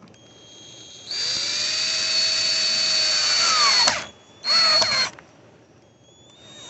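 Cordless drill driving a screw into a rubber-sealed mount hole. It runs for about three seconds, its whine dropping in pitch as the screw draws tight, then gives a short second burst about half a second later.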